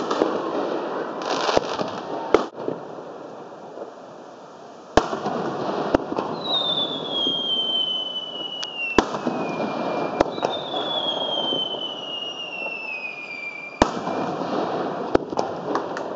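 Aerial fireworks display: about nine sharp bangs of shells bursting, over a continuous crackling hiss. Twice there is a long whistle that slides downward in pitch, the first about six seconds in and the second about ten seconds in.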